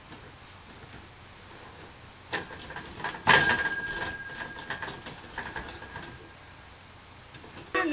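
Skin rubbing and squeaking against a metal dance pole as the body grips and shifts on it, with several sharp knocks and creaks starting about two seconds in. The loudest comes about three seconds in and is followed by a thin, steady squeak lasting a couple of seconds.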